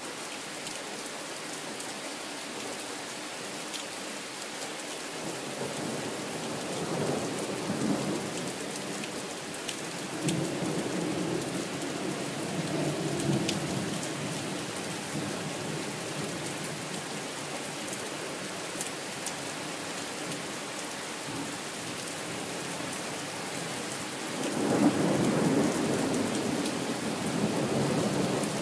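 Thunderstorm: rain falling steadily as a constant hiss, with rolls of thunder rumbling in a few times; the loudest roll comes near the end.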